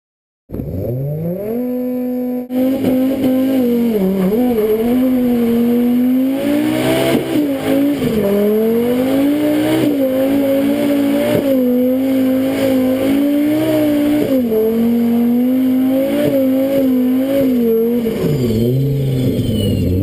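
Engine of an 875 hp turbocharged Audi S4 converted to rear-wheel drive, held at high revs during a burnout with the rear tyre spinning in smoke. The engine note starts suddenly about half a second in, then stays at a fairly steady pitch with repeated brief dips and rises as the throttle is worked.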